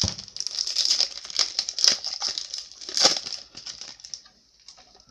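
Foil wrapper of a Topps Chrome baseball card pack crinkling as it is handled and opened, a dense irregular crackle with a few sharper snaps. It dies away about four seconds in.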